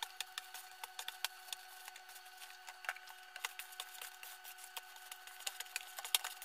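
Hands kneading flour-and-water dough in a plastic bowl: irregular soft crackles and rubbing, over a faint steady hum.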